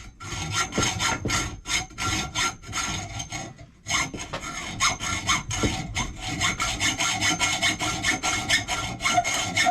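Hand sawing: quick back-and-forth saw strokes, about four a second, pausing briefly a third of the way through before starting again.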